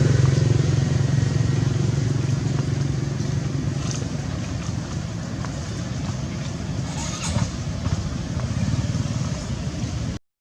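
A motor vehicle engine running with a steady low hum that gradually fades away, then the sound cuts off abruptly near the end.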